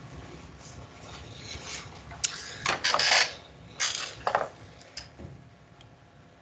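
Handling noise close to the microphone: a few seconds of rustling and clattering, loudest in two bunches about two and four seconds in, then a couple of small clicks.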